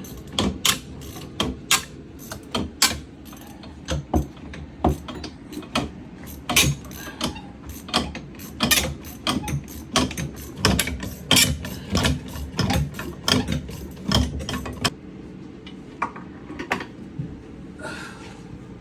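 Socket wrench ratchet clicking over and over in repeated strokes as it works loose the old faucet's mounting nut under the sink. The clicking stops about fifteen seconds in, with only a few scattered clicks after.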